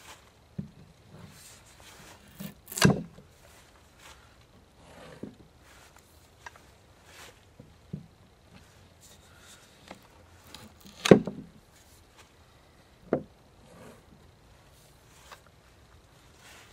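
Gear-driven bypass loppers cutting through a stick: two sharp cracks about eight seconds apart as the blade shears through, and a smaller knock soon after the second. Between them come light clicks and knocks of the tool and the cut wood on a wooden table.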